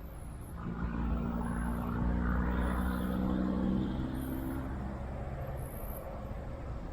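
A motor hum with a low rumble swells in about a second in, holds steady for a few seconds, then fades away.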